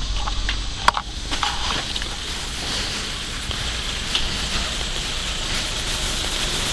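Steady hiss of rain falling on wet surfaces, with a few sharp clicks and knocks in the first two seconds.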